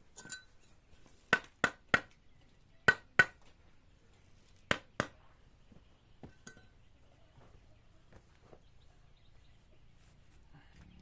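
Sharp clinks of hard objects knocking together, in small groups: three in quick succession about a second and a half in, two near three seconds, two near five seconds, then a few faint taps.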